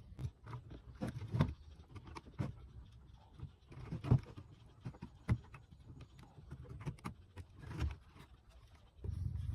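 Irregular clicks and knocks, like small hard objects being handled and set down, the loudest about four seconds in. A steady low hum starts near the end.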